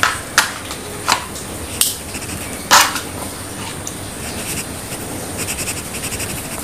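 A metal spoon clinking and scraping against a stainless steel bowl as thick yogurt is spooned in: about four sharp knocks in the first three seconds, the loudest near the end of that stretch, over a steady hiss.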